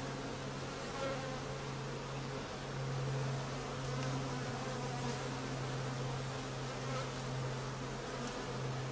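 A honeybee colony buzzing in a steady low hum from a hive opened for frame inspection, swelling and easing a little.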